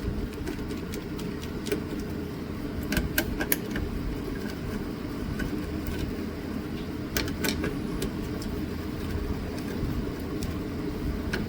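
Scattered small clicks and ticks of a screwdriver on the screws and metal of a laptop's CPU heatsink as the screws are undone, over a steady low background rumble.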